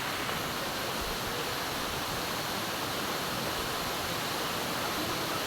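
Steady rush of running water, an even hiss with no change in level.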